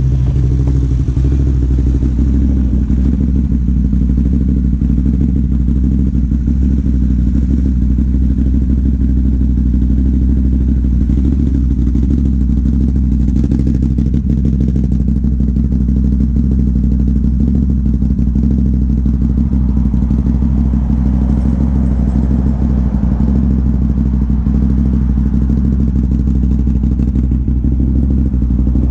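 Off-road vehicle engine running at a steady, unchanging speed, with a constant fine rattle over it.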